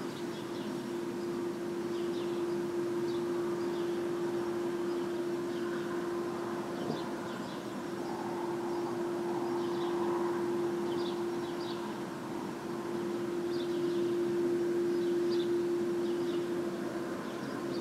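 A steady, unexplained drone at one unchanging pitch, the strange noise heard most nights until morning, over a faint hiss, with scattered faint short high chirps.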